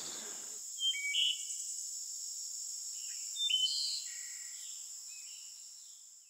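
Outdoor ambience of small birds giving short chirps over a steady, high insect trill, fading out at the end.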